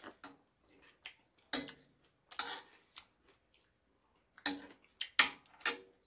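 Eating sounds: a metal spoon clicking and scraping against a ceramic plate, a handful of short separate clicks spread out, with some chewing.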